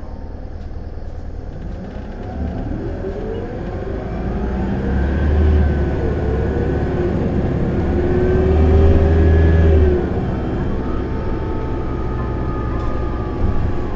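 Isuzu Erga city bus diesel engine pulling hard under power mode, heard from inside the cabin. The engine note climbs over the first few seconds, holds high, climbs again, then drops suddenly about ten seconds in as the bus shifts up into 4th. A thin high whine rises and falls with the revs.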